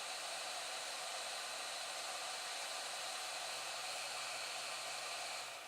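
8858 hot air rework station blowing a steady hiss of hot air onto the connector's fluxed pins to melt the solder. It cuts off suddenly near the end.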